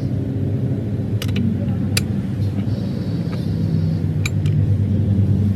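A motor running steadily with a low hum, with a few sharp clicks or knocks and a brief high whine near the middle.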